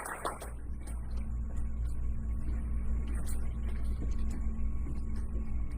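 Applause trailing off within the first half-second, then a steady low rumble with faint humming tones.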